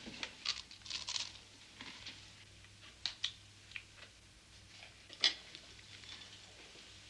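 Quiet eating at a table: scattered light clicks and rustles of cups and dishes, and people chewing. The sharpest click comes about five seconds in.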